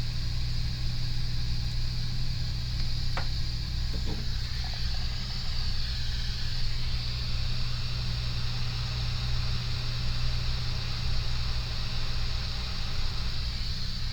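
Steady hum and hiss of a hot-air rework station's blower running, with a faint tick about three seconds in.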